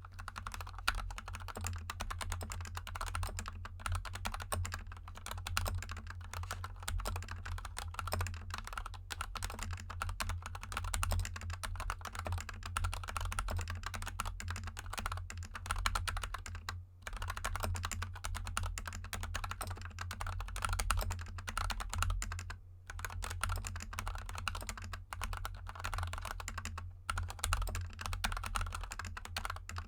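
Steady fast typing on a GK64 mechanical keyboard with lubed Gateron Yellow linear switches and XDA keycaps: a dense stream of key clicks, with short pauses about 17 and 23 seconds in.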